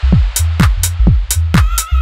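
Electronic dance track: a steady kick-drum beat with crisp hi-hats over a deep, sustained bass. A pitched synth line comes in about one and a half seconds in.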